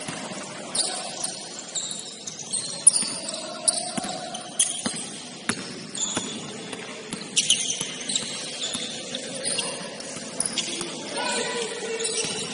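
Basketball game sounds in a gym: sneakers squeaking on the court many times over and a ball bouncing now and then, with players' voices in the background.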